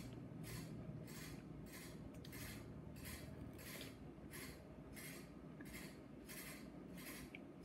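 A person chewing strawberries: soft, even chewing sounds a little under two a second, with a few tiny clicks.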